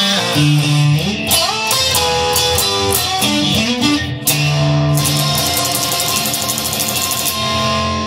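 Guitar-led music: plucked and strummed guitar with held notes over a bass line.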